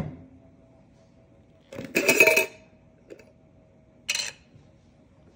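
A glass jar is knocked down onto a plastic cutting board. About two seconds in, its metal screw lid is twisted off with a short grating scrape, and a brief clink follows about four seconds in.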